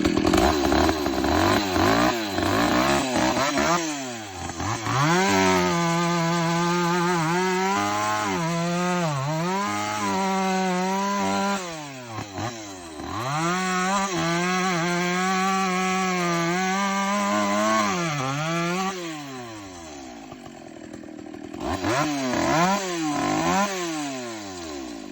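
Vintage 65cc OPEM 165 two-stroke chainsaw running hard, its engine speed rising and falling with the throttle, held high for stretches of several seconds while cutting wood. It drops to a lower, quieter run near the end, then revs up and down a few more times.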